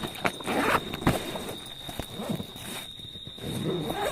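A padded fabric rifle bag being handled: rustling of the cloth and foam with a few sharp knocks. A steady high whine runs underneath.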